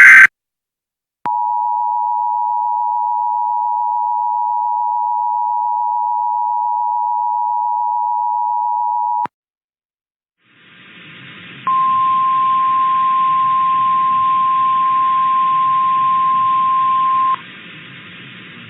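Emergency Alert System alert tones. A loud data burst ends at the very start, then the two-tone attention signal sounds steadily for about eight seconds and cuts off. After a short silence a hiss of static comes up, and a single steady alert tone sounds over it for about six seconds before stopping, leaving the hiss.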